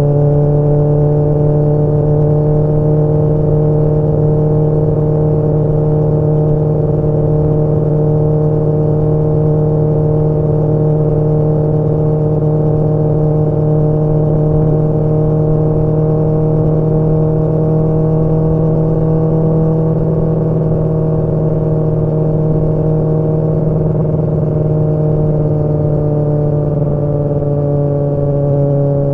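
Kawasaki ZX-10R inline-four engine and exhaust pulling at steady cruising revs, heard from the rider's seat. The pitch holds nearly even, rising slightly past the middle and easing off a little near the end.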